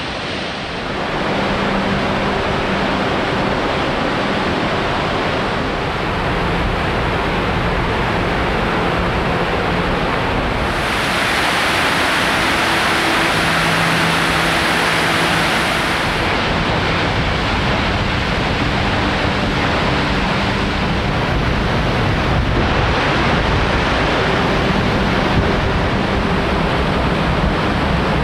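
Rushing water from a tall waterfall and a rocky creek's white-water rapids, a steady dense rush. About eleven seconds in it turns brighter and hissier for about five seconds.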